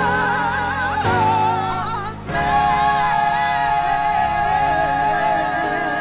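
Gospel vocal group singing in close harmony over sustained keyboard chords, with voices holding long wavering notes. The singing breaks off briefly about two seconds in, then resumes on a long held chord.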